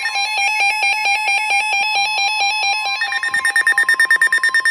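Several NOAA weather radios sounding their alerts at once for a severe thunderstorm warning: rapid beeping alarms at different pitches layered over a steady warning tone. About three seconds in, the beeping shifts higher in pitch. The steady tone stops just before the end.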